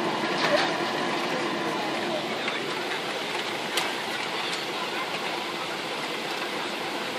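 Airliner cabin noise during the landing rollout: the steady rush of engines and airflow with the spoilers deployed, easing slightly as the aircraft slows. A single sharp click near four seconds.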